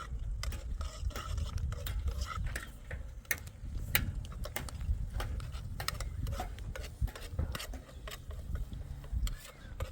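Kitchen utensils clicking and clinking against a cooking pot in irregular strokes, with a steady low rumble underneath.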